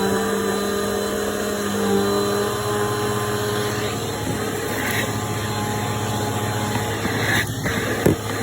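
Bissell PowerForce Helix 2191 upright vacuum running steadily with its motor hum, as its suction is demonstrated. A few short knocks come near the end.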